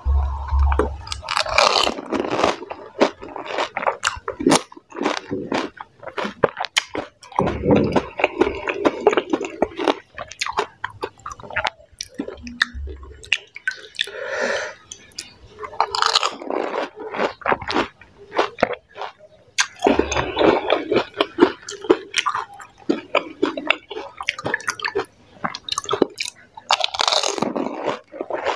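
Close-miked eating of water-filled pani puri: crisp puri shells crunching and wet, squishy chewing in irregular bursts of quick crackles, with a few short dull low thumps.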